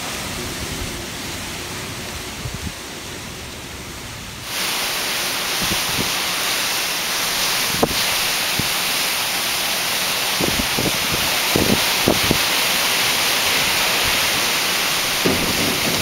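Strong, gusty storm wind rushing steadily and buffeting the microphone in low thumps. The rush jumps louder about four and a half seconds in.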